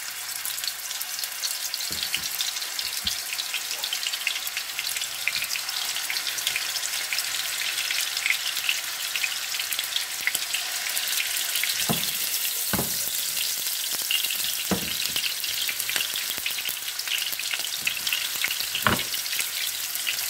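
Raw meatballs sizzling in hot cooking oil in a frying pan, a steady dense crackle. There are a few dull knocks in the second half as more meatballs are set down in the pan.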